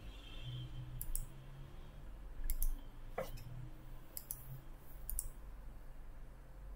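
Computer mouse button clicks, about six scattered over a few seconds, several in quick press-and-release pairs, as menus are opened on the editing timeline.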